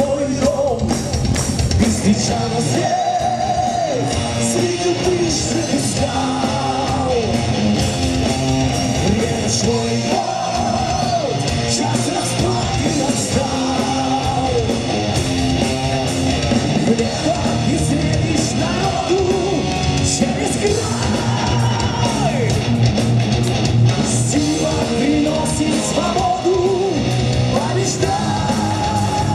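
Heavy metal band playing live: a male singer's vocals over distorted electric guitars, bass and drums, heard from the audience in a hall.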